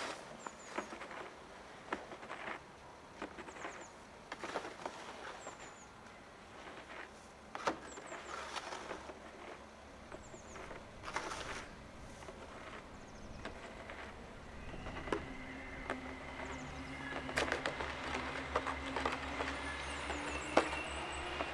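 A ČD CityElefant (class 471) double-deck electric multiple unit approaching, its steady electric whine and hum coming in about two-thirds of the way through and growing louder toward the end. Before that, quiet surroundings with faint scattered clicks and a few brief high chirps.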